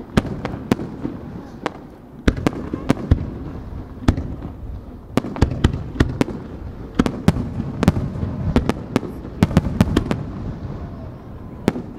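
Aerial firework shells bursting overhead: an irregular string of sharp bangs, at times several a second, over a continuous low rumble of echoing reports.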